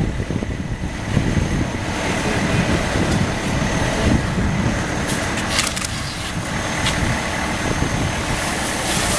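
Fire apparatus engines running steadily at pump speed: a continuous low rumble and noise with a faint steady high whine. A few short clicks come about five seconds in.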